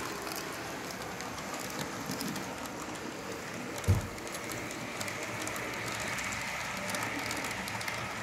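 Model electric train running along the layout track: a steady whir and hiss of the motor and small wheels on the rails, with many light clicks throughout. A single dull thump about four seconds in is the loudest sound.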